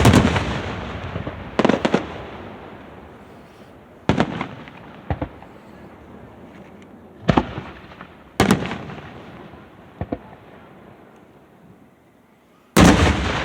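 Aerial fireworks shells bursting one after another, about seven bangs a second or two apart. Each bang trails off in a long rolling echo, and a loud one comes near the end.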